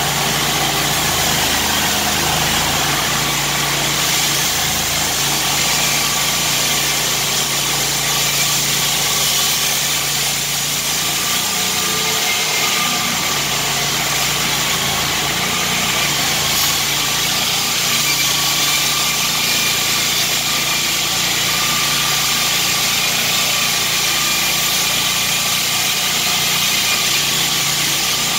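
Engine of a Core Cut walk-behind concrete flat saw running steadily under load as its diamond blade cuts through a concrete slab, with a faint wavering whine over the engine noise.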